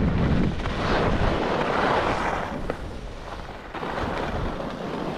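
Wind rumbling on the microphone, swelling and easing about once a second.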